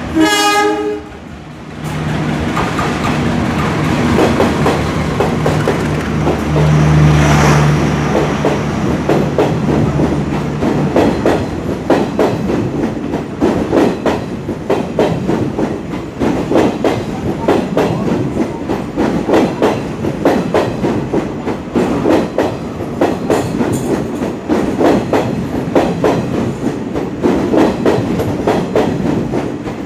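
A passing train: its horn sounds briefly and cuts off about a second in, then an engine hums, loudest about seven seconds in. From about twelve seconds on, the wheels clatter rhythmically over the rail joints.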